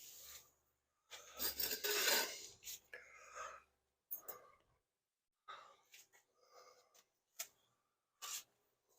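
Hands working on the motorcycle: rubbing and scraping, with a few light clicks and knocks.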